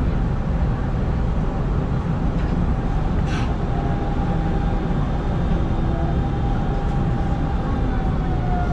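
Hanshin 5500 series electric train running, heard from behind the cab: a steady low rumble of the wheels on the rails, one short click about a third of the way through, and a faint whine that sets in about halfway and dips a little near the end.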